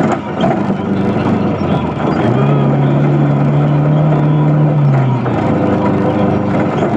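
Rebuilt Toyota 22R four-cylinder engine running, with a louder steady drone from about two to five seconds in. The owner reports a loud, high-pitched tick at all rpm that comes and goes, cause unknown.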